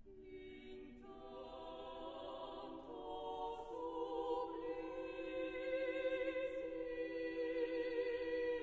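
Choir singing long sustained chords, entering softly and swelling louder, with the harmony shifting twice along the way.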